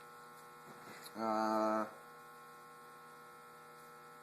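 Steady electrical hum, broken about a second in by a short, loud, even-pitched buzz lasting under a second.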